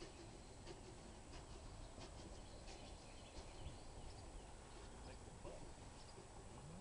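Near silence, with faint, scattered bird chirps.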